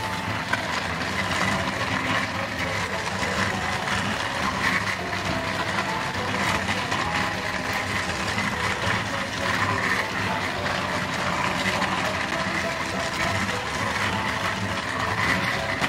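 Battery-powered Thomas & Friends toy trains running around a plastic track: a steady motor whir with the rattle of wheels on the track.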